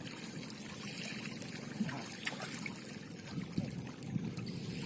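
Water trickling and lapping, with scattered small clicks and splashes.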